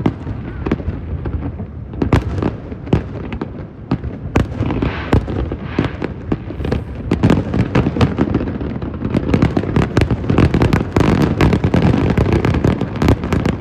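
Fireworks display: a run of irregular sharp bangs and crackles that thickens into a dense, continuous barrage about nine seconds in.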